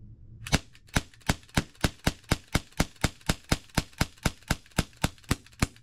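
Smith & Wesson M&P 40 non-blowback CO2 pistol fired rapidly: a string of about twenty sharp cracks, roughly four a second, starting about half a second in and stopping near the end.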